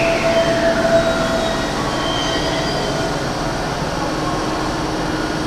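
Keikyu electric train pulling in and braking, its motor whine falling in pitch over the first second or so over the rumble of the cars. About four seconds in, a low steady hum sets in as the train slows to a stop.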